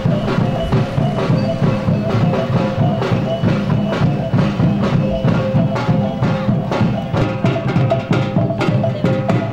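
Percussion-led music: drums and rapid, even strikes over a repeating pitched figure, with no break.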